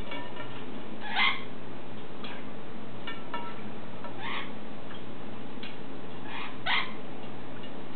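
Parrot giving three short calls that fall in pitch, with a few faint short chirps between them, over a steady low hum.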